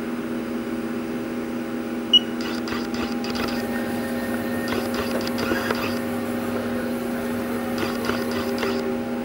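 Steady hum with a constant pitched drone from a powered-up Haas SL-30T CNC lathe, with one sharp click about two seconds in.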